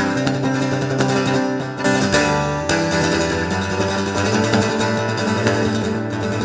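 Acoustic guitar strummed and picked in a closing instrumental passage at the end of a folk song.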